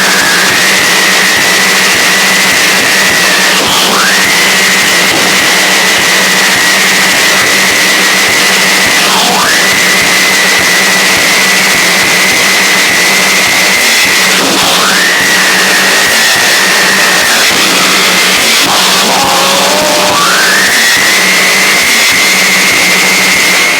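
Harsh noise music: a loud, dense wall of distorted static with a low hum under it and a piercing high tone that drops sharply and sweeps back up about every five seconds.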